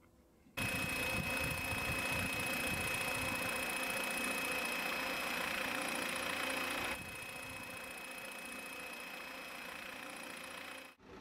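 UVH-25EL electric unmanned helicopter in flight: the electric motor and rotor give a steady high whine. It starts suddenly about half a second in and drops in level about seven seconds in.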